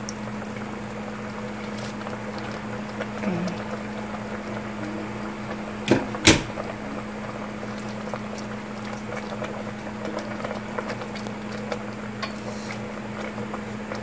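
A steel pot of vegetable broth simmering, over a steady low hum, with two sharp knocks about six seconds in. In the second half a wooden spatula stirs through the leaves in the pot, making small scattered clicks.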